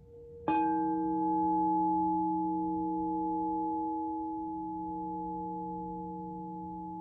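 Crystal singing bowls: one bowl is struck once about half a second in and rings on with a steady, pure tone. Underneath it, another bowl's lower tone hums on, swelling and fading slowly.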